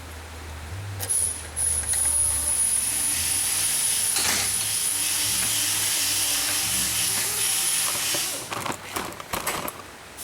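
Compressed air from a blow gun hissing steadily for about seven seconds with a thin high whistle, then a few light metallic clicks near the end.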